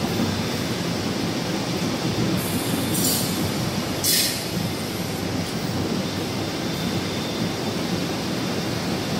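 Glass-factory machinery running with a steady low rumble, broken by two short high hisses about three and four seconds in.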